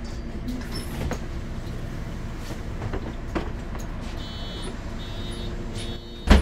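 Cabin sound of a 2008 MAN Lion's City NL 273 city bus with a Voith automatic gearbox: its diesel engine running steadily. In the second half a high beeping tone sounds three times, and a loud thump comes just before the end.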